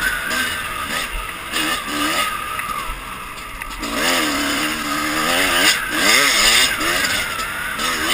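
Dirt bike engine revving up and down through the gears as it rides a rough trail, with knocks and clatter from bumps over a steady rushing noise.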